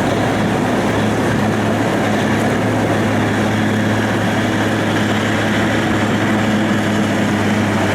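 A steady, loud mechanical drone with a low hum that does not change.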